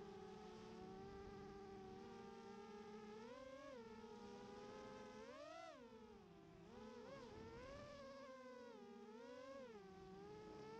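FPV quadcopter's brushless motors whining faintly. Several overlapping tones swoop up and down together as the throttle changes through turns and climbs.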